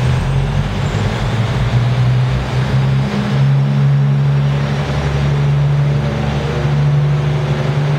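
New York City Subway train pulling out of a station: a steady low motor hum over the rumble of wheels on rail, the hum firming up about three seconds in.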